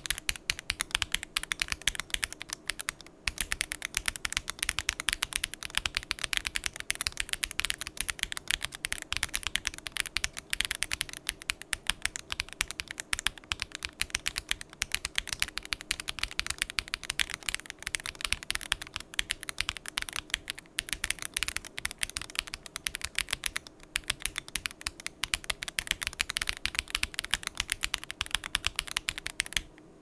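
Heavy typing on an AKKO ACR Pro Alice Plus mechanical keyboard with lubed Akko Crystal switches, a PC plate, gasket socks, case foam and ASA-profile keycaps: a fast, dense stream of keystrokes. There are short breaks about 3 seconds in and near 24 seconds.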